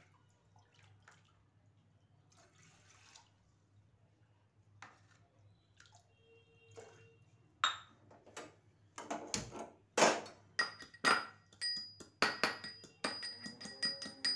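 Fresh ginger being crushed by pounding: a run of sharp knocks with a metallic ring, two or three a second, starting about halfway through. Before that there are only a few faint handling clicks.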